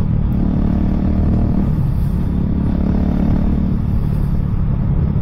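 Husqvarna 701's single-cylinder engine running steadily while riding along at road speed, over a constant rush of wind and road noise.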